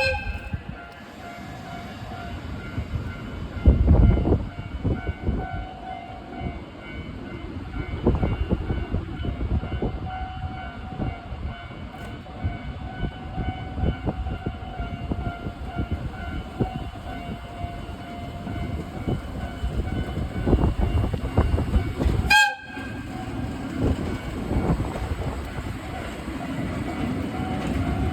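Train of an EF65 electric locomotive and a DE10 diesel locomotive running over a level crossing: continuous wheel rumble with repeated clacks over rail joints, loudest about four seconds in. A short horn sounds right at the start.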